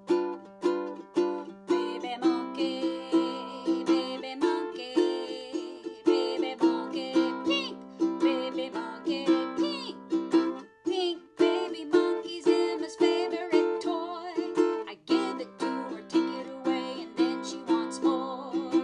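Ukulele strummed in a steady rhythm, playing a blues, with a woman's voice singing along in places.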